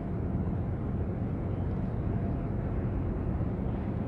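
Steady low rumble of wind buffeting the microphone over open harbour water, with no distinct tones or sudden sounds.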